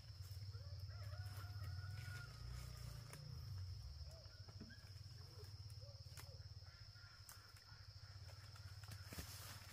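Chickens calling faintly, drawn-out wavering calls, over a steady high-pitched whine and a low rumble.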